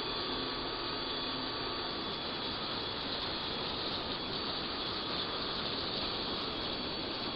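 Power tool grinding rust off the steel liftgate down to bare metal: a steady, even grinding hiss with a faint motor whine.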